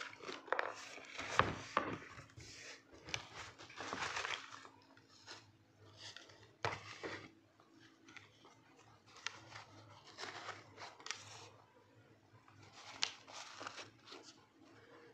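A cardboard shoebox being handled and opened, then paper wrapping rustling and crinkling as a sneaker is unwrapped: irregular bursts of rustling with a few sharp knocks.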